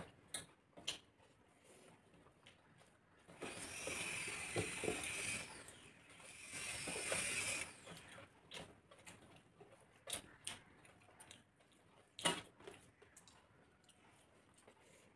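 Eating by hand: fingers mixing rice and curry on metal plates, and chewing. Faint scattered clicks and scrapes, two longer hissy stretches about four and seven seconds in, and a sharper click about twelve seconds in.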